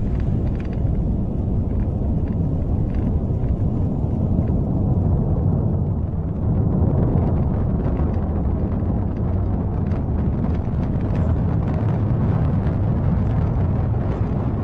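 Falcon 9 first stage's nine Merlin 1D engines at full thrust in the climb after liftoff, heard from the ground as a steady, loud low rumble with crackle through it.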